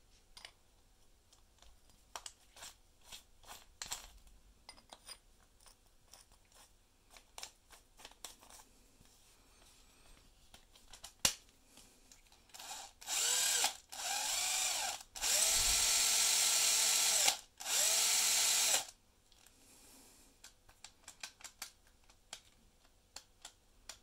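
Cordless drill running an SDS masonry bit clamped in its keyless chuck, in four short runs with the motor whine rising as each spins up; the SDS bit wobbles in this ordinary chuck. Before the runs, scattered small clicks of the bit and chuck being handled and tightened.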